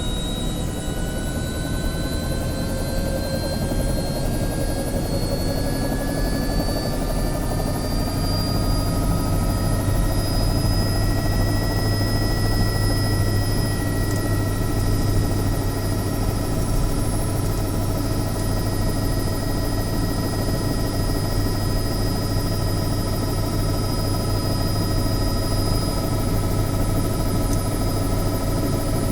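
Bell 505 helicopter heard from inside the cabin as its turbine runs up: the whine rises slowly in pitch for about ten seconds, then holds steady. A low rotor drone grows louder about eight seconds in.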